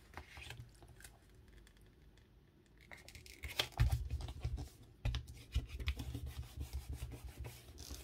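Paper being rubbed and scratched by hand in short repeated strokes while lines are made on a journal page. The strokes are faint, stop for a couple of seconds, then start again more busily about three and a half seconds in.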